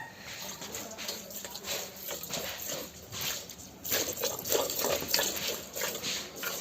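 A cow being milked by hand, the milk squirting into a pail in a run of short hissing squirts, about one or two a second.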